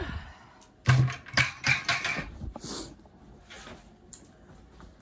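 A sharp thump about a second in, then a quick run of knocks and clatters, with a short hiss just before the three-second mark and quiet handling noise after.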